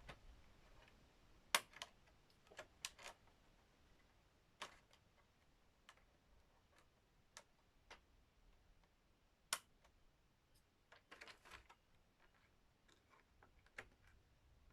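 Faint, scattered sharp plastic clicks and taps from a Transformers Studio Series figure and its parts being handled, with the sharpest click about a second and a half in and another near ten seconds in.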